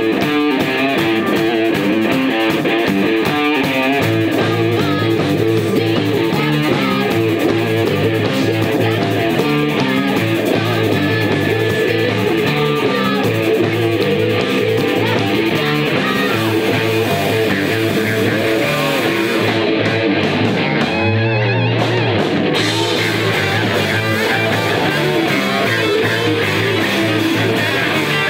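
Live rock band playing an instrumental passage: distorted electric guitars, bass guitar and drums. About twenty seconds in, the cymbals and high end drop out for a couple of seconds over a held low bass note, then the full band comes back in.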